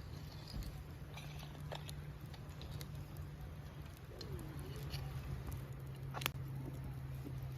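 Wood fire crackling, with scattered small pops and one sharper pop about six seconds in, over a steady low hum.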